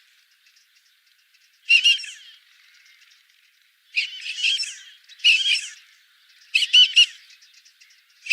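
Common teal (drake) calls: short high, clipped whistled calls in quick clusters, repeating every second or two, with fainter twittering between them.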